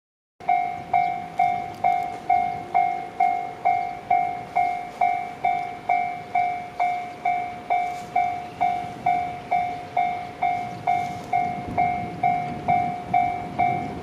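Japanese railway level-crossing warning bell, the electronic 'kan-kan' alarm, ringing steadily at a little over two strikes a second. Each strike is a sharp ringing tone that fades quickly. It is the crossing signalling an approaching train while its barriers come down.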